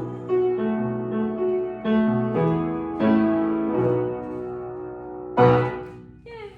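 Piano music: a slow melody of struck notes over bass notes, with a loud chord about five seconds in, then dying away.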